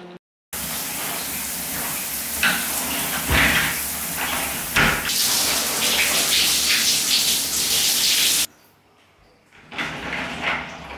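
Shower spray running steadily onto a person standing in a shower cubicle, with a few louder splashes. It cuts off suddenly near the end.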